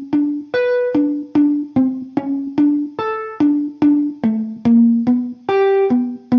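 A guitar playing a lick slowly, one picked note at a time, about two to three notes a second, each note ringing and dying away before the next.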